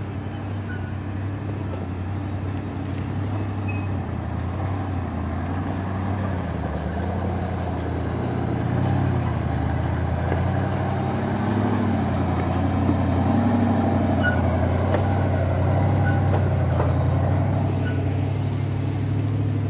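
Off-road rock-crawler buggy's engine running at low revs as it crawls over rocks, growing louder as the buggy comes close and easing off near the end.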